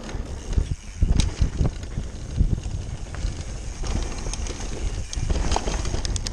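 Mountain bike tyres clattering over the slats of a wooden boardwalk, then rolling fast down a rough dirt trail, with knocks and rattles from the bike over the bumps. The hardest knocks come about a second in, on the boards.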